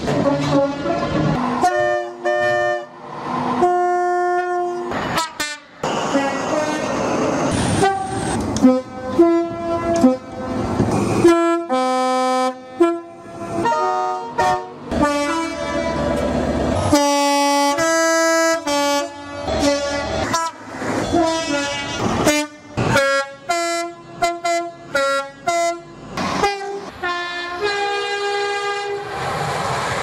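British train two-tone air horns sounding in a rapid series of short blasts from several different trains, one clip after another, each often stepping between a higher and a lower note.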